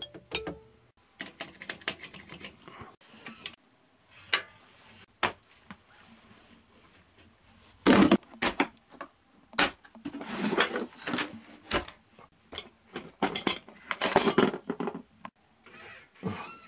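Irregular clattering and knocking of hard objects being handled, a scatter of sharp clicks with louder bunches about eight, ten to eleven, and thirteen to fourteen seconds in.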